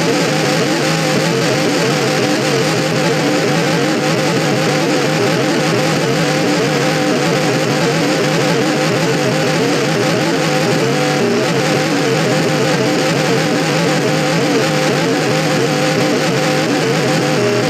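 Ceiling fan running: a loud, steady motor hum and whir that holds without a break.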